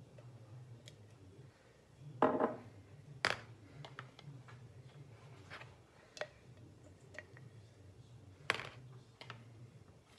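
A utensil knocking and scraping against a plastic tub of coconut oil and a ceramic bowl as the oil is scooped out and weighed: a handful of separate clicks and knocks, the loudest a short rattling scrape about two seconds in, over a low steady hum.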